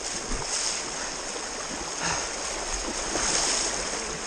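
Small stream rushing steadily around someone wading through it against the current.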